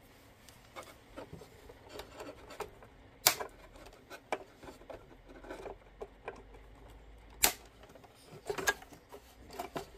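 Side cutters snipping wires off a circuit board, with small handling clicks and rustles between cuts. Two sharp snaps stand out, about three seconds in and about seven and a half seconds in, with a few more clicks near the end.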